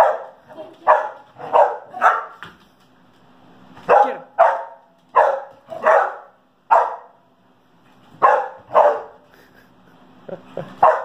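Dogs barking in rough play: about a dozen sharp barks in quick clusters, with short pauses between the groups.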